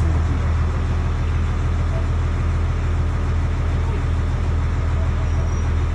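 Fire truck engine running steadily, a constant low hum with no change in speed.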